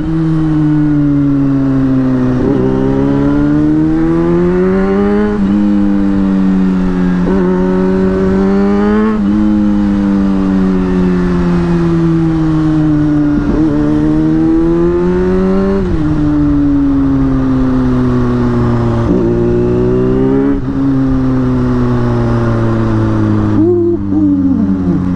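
Superbike engine and exhaust heard from the rider's seat while riding, the pitch climbing through the revs and dropping at each gear change, about ten times, with wind rush underneath.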